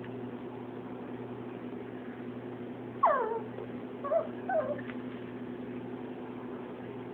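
A dog whining: one high call falling in pitch about three seconds in, then two shorter whines about a second later, over a steady low hum.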